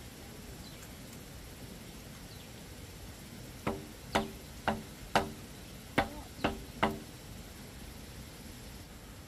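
Seven hammer blows on a bamboo pole of a hut frame, about two a second, each a sharp knock with a short ring. They start about three and a half seconds in and stop about seven seconds in.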